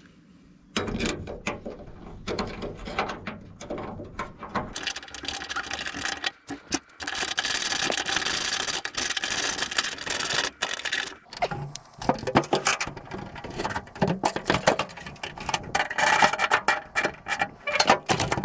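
Hand work on a Datsun 620 pickup's tailgate latch: irregular metal clicks, knocks and rattles as the latch is taken off and the new one fitted. A denser rasping, ratchet-like stretch runs through the middle.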